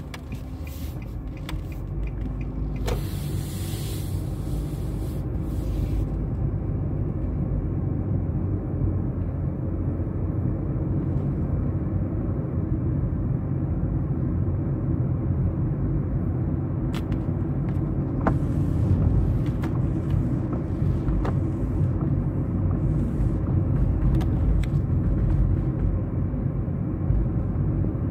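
Road and engine noise inside a moving car's cabin: a steady low rumble that grows a little louder over the first several seconds, with a brief hiss about three seconds in.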